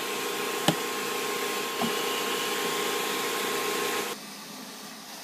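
Vacuum cleaner with a hose attachment running steadily, with a steady whine in it and a sharp knock about two thirds of a second in. It cuts off abruptly a little after four seconds, leaving a quieter hum.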